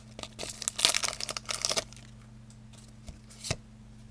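Foil Pokémon booster pack wrapper being torn open and crinkled by hand, a dense crackling for about the first two seconds, then a few soft ticks as it quietens.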